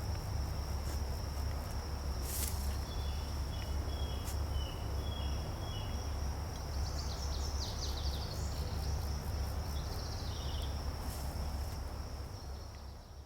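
An insect's steady high-pitched trill over a constant low rumble, with a bird calling: short chirps early on, then runs of quick falling notes about seven seconds in and again near eleven seconds. A few sharp clicks stand out.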